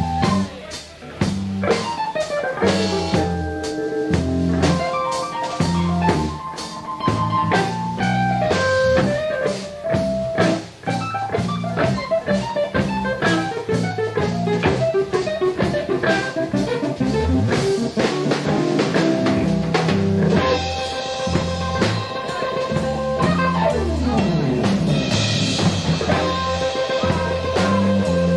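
Blues band playing an instrumental break without vocals, with a guitar lead line over drums and bass. Several notes slide in pitch near the middle.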